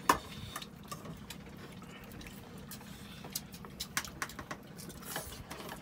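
Chopsticks clicking and scraping against a tray as cooked fish is picked apart, with one sharp click right at the start and scattered lighter taps after it. A low steady hum runs underneath.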